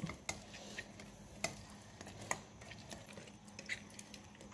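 Oranges being hand-squeezed for juice: a few faint, scattered clicks and light handling sounds.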